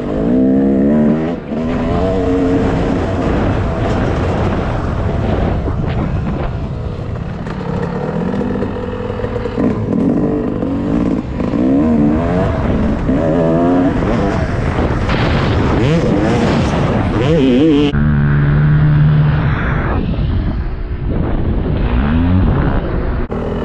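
Dirt bike engine heard from on board while riding, its revs rising and falling over and over. Near the end it settles for a couple of seconds on a steadier low note before climbing again.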